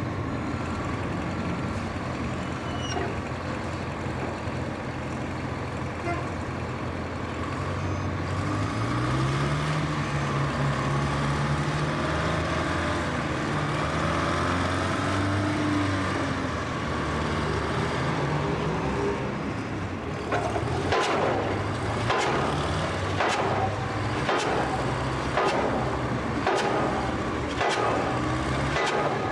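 Pile-driving rig's engine running steadily, rising in pitch about a third of the way in. From about two-thirds of the way in, the pile hammer strikes the pile about once a second, a sharp bang each time.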